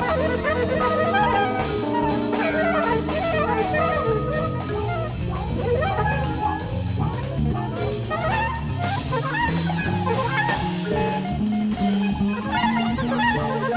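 Jazz ensemble music with a drum kit and horns, playing continuously.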